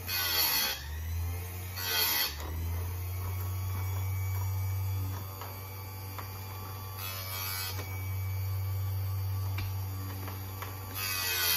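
A Chicago Electric electric chainsaw chain sharpener's motor runs with a steady low hum. Its grinding wheel is lowered onto the chain's cutters four times in short grinding bursts: at the start, about two seconds in, around seven seconds in, and near the end.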